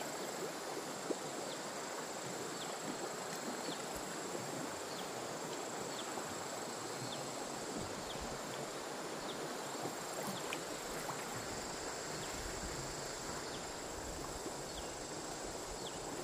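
Outdoor insect ambience: a steady high insect drone over a constant hiss, with short high chirps repeating every second or so.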